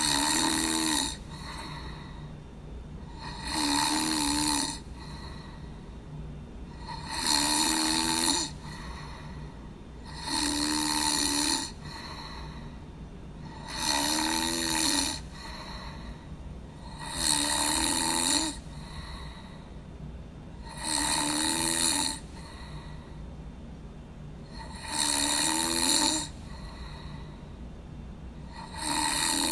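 A person snoring in a slow, even rhythm: a loud snore about every three and a half seconds, each lasting about a second and a half, over a steady low hum.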